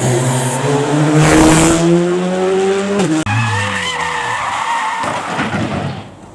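Rally car accelerating hard, its engine note rising steadily in pitch for about three seconds until it breaks off sharply. Then a brief tyre squeal and skidding, and the sound fades near the end.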